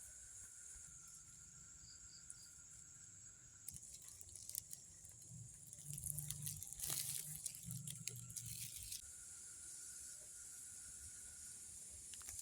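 Forest insects chirring in a steady high drone, with a lower steady tone that drops out for a few seconds. From about four to nine seconds in, a run of rustles and clicks.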